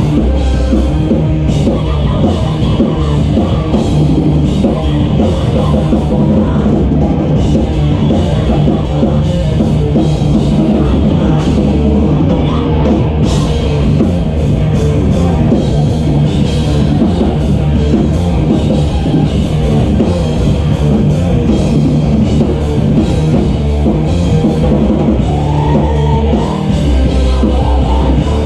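Live rock band playing loud, with a busy drum kit and guitar.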